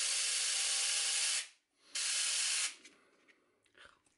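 Homemade battery-powered chainsaw knife running with a steady high buzz as its blade saws through a breaded pork cutlet. It stops about a second and a half in, runs again briefly for under a second, then cuts off, leaving a few faint clicks.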